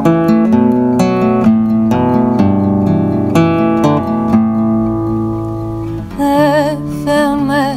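Acoustic guitar played live, picked notes ringing into longer held chords. Near the end a woman's voice comes in singing with vibrato over the guitar.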